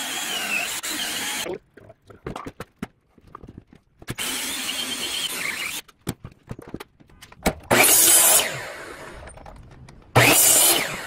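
A cordless drill drives a hole saw through a wooden board in two steady runs, with clicks and knocks in between. Then a miter saw makes two short loud cuts, near the end, and the sound trails off after each one.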